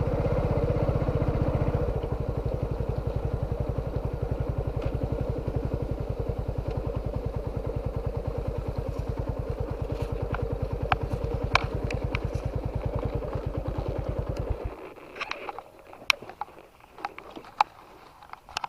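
A small engine running steadily with an even, rapid throb, then cutting off suddenly near the end. After it stops, scattered sharp clicks and ticks are heard.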